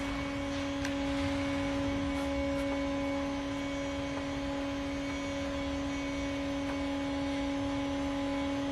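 A steady, unchanging hum at one fixed pitch, with a higher overtone above it.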